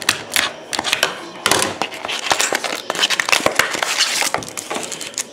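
Plastic wrapping crinkling and tearing, a dense run of crackles, as a sealed box of football trading cards is opened.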